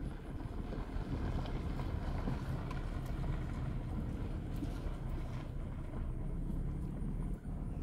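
A car driving slowly, a steady low rumble of engine and tyres.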